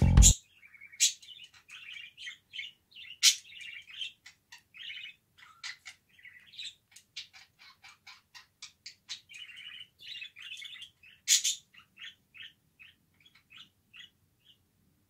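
Pet birds chirping and chattering in a quick run of short chirps, with louder, sharper calls about three seconds in and again near eleven seconds.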